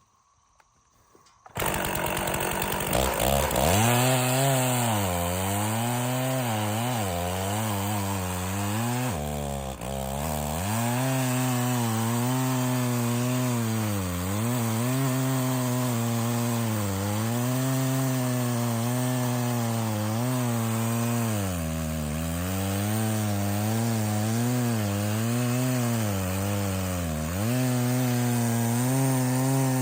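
Stihl 066 two-stroke chainsaw running at full throttle while cutting into a large red oak log, its engine pitch sagging and recovering repeatedly as the chain bites and bogs in the wood. It comes in suddenly about a second and a half in.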